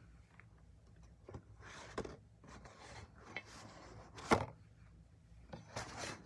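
Handling noise close to the microphone: scattered rustles, scrapes and knocks, the loudest a sharp knock about four seconds in, over a low steady hum.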